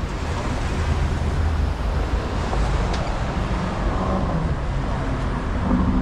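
City street traffic: cars and SUVs driving through an intersection, a steady mix of engine and tyre noise, with a deep engine rumble that fades about two seconds in.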